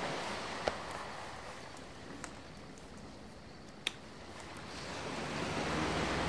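Soft rushing of water washing at a shoreline, dying down around the middle and swelling again toward the end, with three short sharp clicks.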